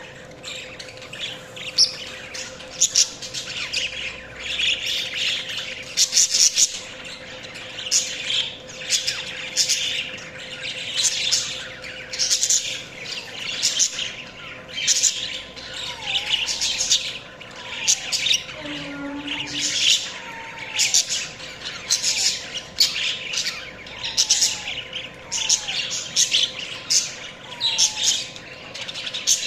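Budgerigars chirping and chattering: clusters of sharp high chirps and squawks coming about once a second, over a faint steady tone.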